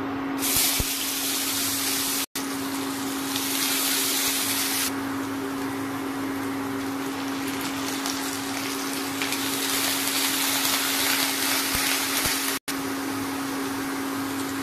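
Hot oil sizzling in a non-stick kadai as sliced onions and onion paste fry, the sizzle swelling and easing, over a steady hum from the induction cooktop. The sound breaks off for an instant twice.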